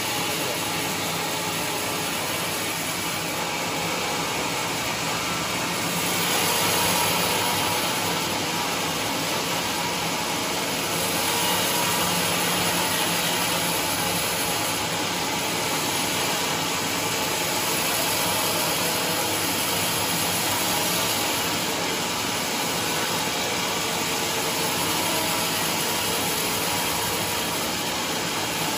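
Large band sawmill cutting lengthwise through a trembesi (rain tree) log: the blade and its drive make a steady, loud running noise that swells slightly about six and eleven seconds in.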